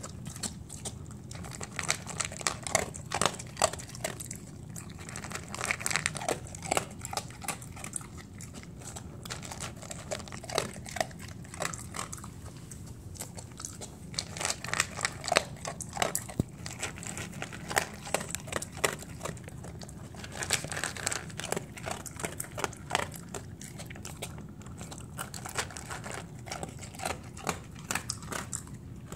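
A dog crunching dry kibble from a stainless steel bowl: clusters of sharp crunches and clicks as it bites and chews, broken by short pauses.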